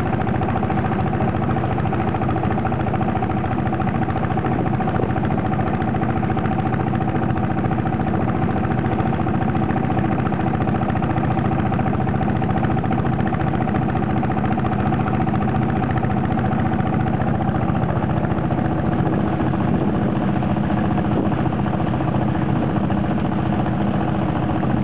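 A motorboat's engine running steadily under way, an even drone that holds one pitch.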